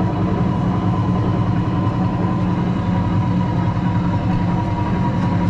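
Steady low motor hum with a thin, steady high whine above it, holding at an even level throughout.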